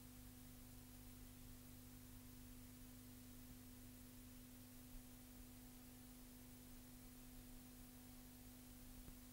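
Near silence: a faint steady hum under a low hiss.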